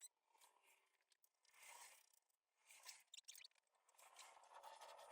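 Near silence with a few faint scrapes and clicks, and a faint hiss building near the end.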